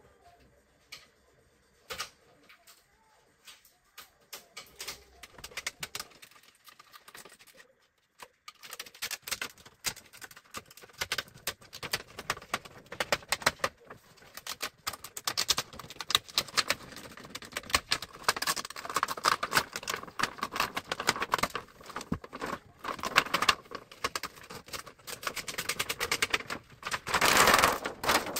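Thin plastic reflector sheet of an LED TV panel crackling and rustling as it is handled and lifted off the backlight, with scattered clicks at first, then a dense run of crackles that is loudest near the end.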